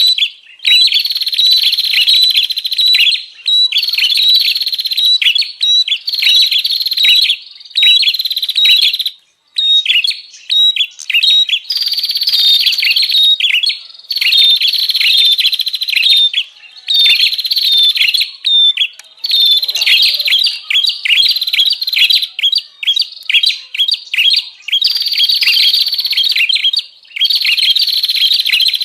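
Prinia (prenjak) chattering rapidly and noisily in long, dense phrases of one to three seconds with brief breaks: the agitated 'ribut' call used as a lure to draw in wild prinias.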